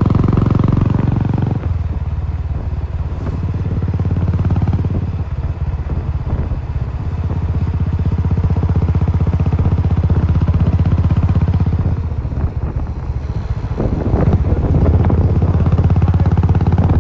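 Royal Enfield Classic 350's single-cylinder engine thumping through a Cobra aftermarket exhaust while riding. The throttle eases off about a second and a half in, then opens up again louder near the end.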